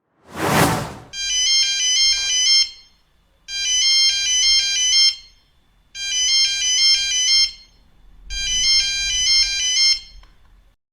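A short whoosh, then an electronic phone ringtone: a quick, high chiming melodic phrase played four times, about every two and a half seconds.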